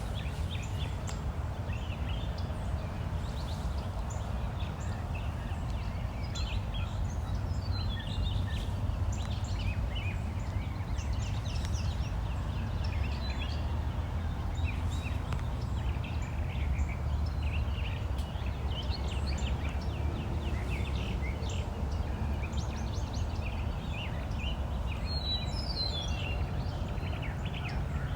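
Brown thrasher singing: a long string of short, varied phrases, the kind of song in which each phrase is typically repeated about twice before the bird moves to the next. A steady low rumble runs underneath.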